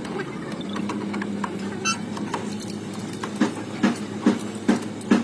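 Steady mechanical hum. About three seconds in, regular sharp knocks begin, roughly two a second.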